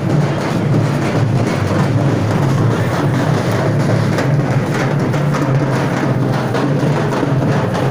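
Loud, rapid drumming of a procession's drums, a dense unbroken run of strikes.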